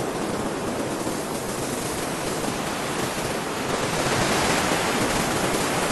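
A steady rushing noise with no distinct tones or beats, swelling slightly about halfway through.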